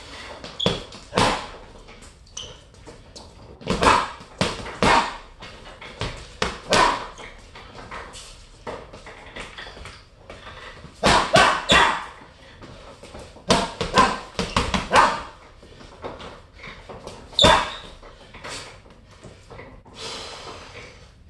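Boxing-gloved punches landing on a hanging Everlast heavy bag in quick combinations of two to five strikes, with short pauses between the combinations.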